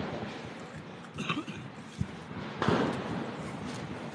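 Steady hiss with a sharp crack about two seconds in, followed soon after by a louder bang that fades away over about half a second.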